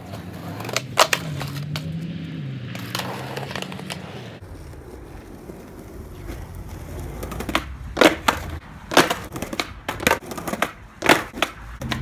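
Skateboard rolling on concrete, with a series of sharp wooden clacks from the tail popping and the board striking the ground during repeated flip-trick attempts. The clacks come a few at a time early on and then bunch up over the last four seconds.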